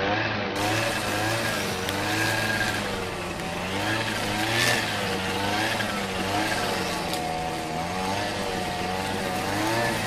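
Background music: a melody of wavering, gliding notes over a steady low drone, starting and stopping abruptly.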